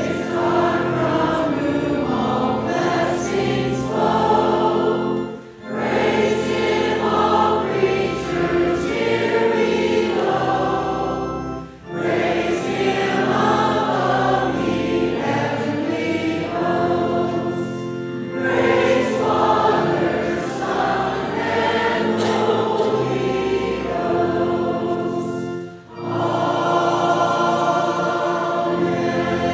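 Church choir singing a hymn in sustained phrases, with brief pauses between phrases.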